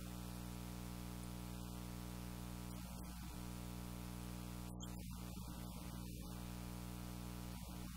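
Steady buzzing hum with many overtones that does not change.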